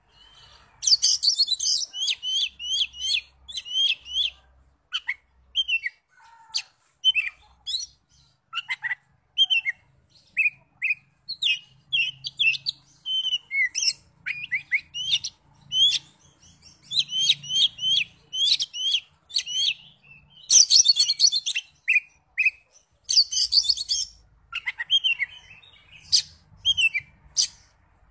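Caged Oriental magpie-robin singing a varied song of sharp whistles and chirps, with denser chattering phrases between short pauses.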